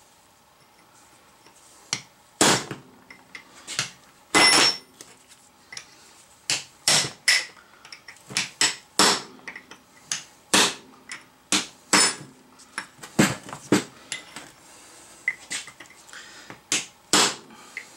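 Small hand hammer striking a steel chisel held against a Datsun truck steering knuckle, metal on metal, to split the part free around the kingpin head. The blows are sharp and unevenly spaced, roughly one a second, and a few leave a brief ring.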